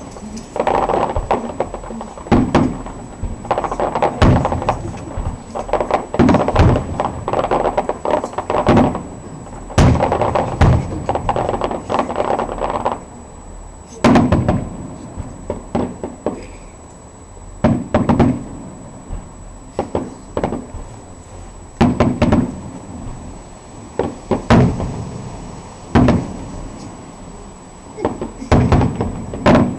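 Aerial firework shells bursting, deep bangs with echoing tails. A dense run of overlapping bursts fills the first dozen seconds, then single bangs follow every couple of seconds.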